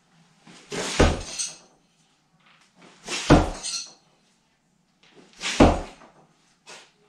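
Three thrown knives striking a wooden log-round target, about two and a half seconds apart: each a sharp thunk with a short tail after it.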